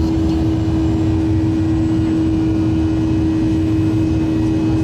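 Cabin noise inside a Boeing 737-800 climbing after takeoff: the steady drone of its CFM56 turbofan engines, a constant low hum over a rumbling roar.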